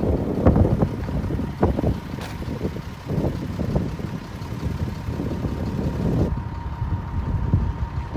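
Heavy diesel machinery running with a low rumble and frequent irregular clanks and knocks, typical of a bulldozer at work, with a faint steady whine.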